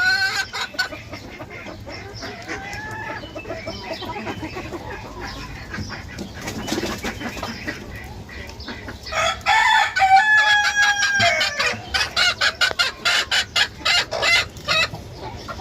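Chickens clucking and calling. A rooster crows about two-thirds of the way in, a held call that falls away at the end, followed by a rapid string of short, sharp cackles.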